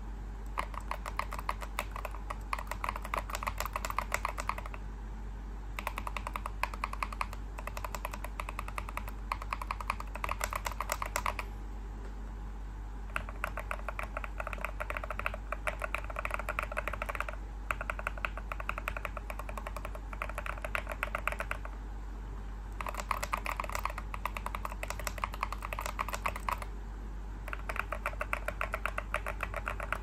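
Fast typing on a Keychron V1 mechanical keyboard with a tape mod and XDA-profile keycaps, its left half on stock Akko Cream Blue switches and its right half and spacebar on stock Jwick Yellow Pro switches. The keys clack in six runs of rapid keystrokes, each a few seconds long, with short pauses between them.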